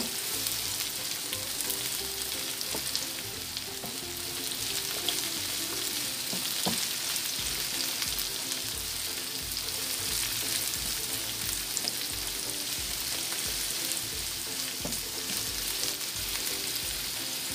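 Sliced carrots, bell pepper and onion sizzling steadily in hot oil in a frying pan, stirred with a wooden spatula.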